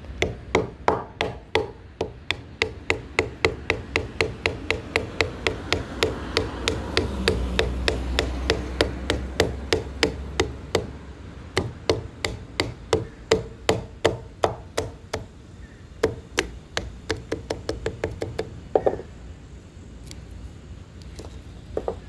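Batoning: a baton knocking steadily on the spine of a sturdy pocket knife to drive it through a piece of tough wood, about two or three blows a second. The blows pause briefly about halfway and stop a few seconds before the end.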